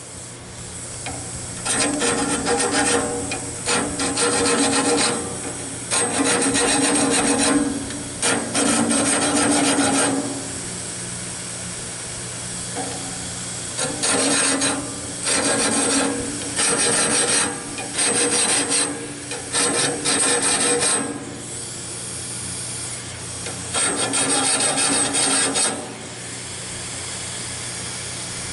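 Steel file rasping across the teeth of a sawmill band blade, sharpening it by hand: about ten short runs of quick strokes with pauses between, over a faint low hum.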